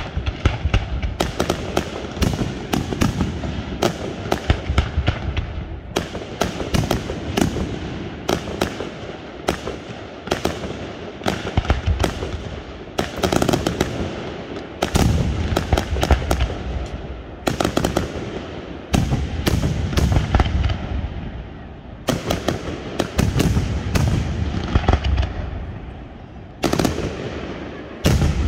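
Aerial firework shells bursting in rapid volleys: clusters of sharp bangs, several a second, coming every two or three seconds over a continuous low rumble of booms and echo.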